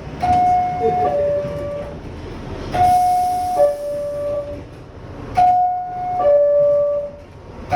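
High-pitched New York City subway car door chime sounding its falling two-note 'ding-dong' three times, about every two and a half seconds, over the noise of the train. It is the warning that the doors are about to close.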